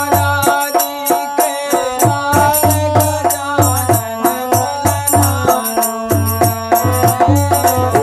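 Instrumental break in a folk devotional song: a harmonium plays the melody in sustained reedy notes over a steady, driving dholak rhythm with regular deep bass strokes.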